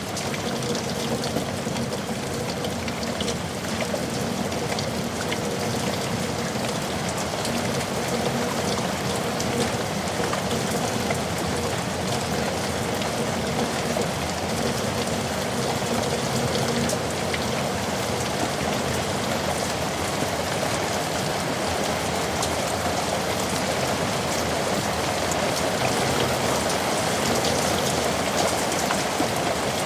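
Heavy rain falling steadily in a yard, with dense drops pattering on hard surfaces; it grows slightly heavier near the end.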